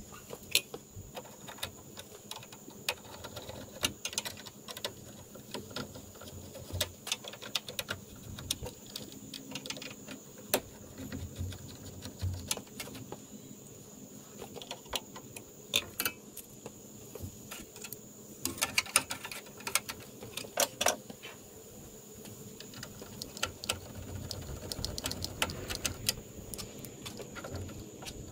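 Scattered light clicks and taps of hand work and parts being handled around a headlight mount, irregular and busiest past the middle, over a steady faint high-pitched tone.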